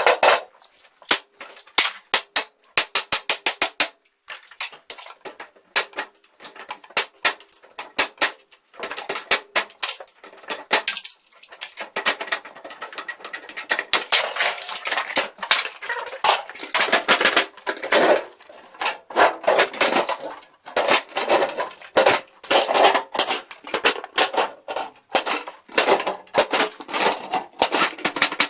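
Metal clanking and clattering: runs of sharp knocks that become a denser, continuous clatter about halfway through.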